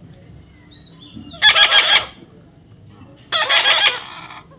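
A parrot squawking: two short, harsh, loud calls about two seconds apart.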